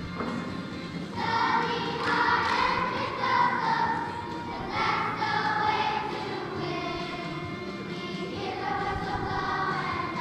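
Choir of young children singing together in long, held notes, with a new phrase swelling in about a second in.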